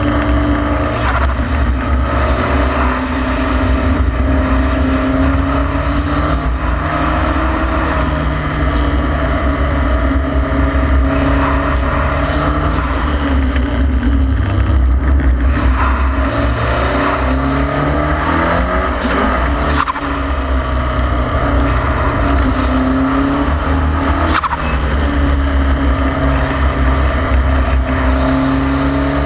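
KTM X-Bow's turbocharged 2.0-litre four-cylinder engine heard from the open cockpit at racing speed. Its pitch climbs and drops again and again as it pulls through the gears and slows for corners, with falls around the middle and near the end. Heavy wind noise buffets the microphone throughout.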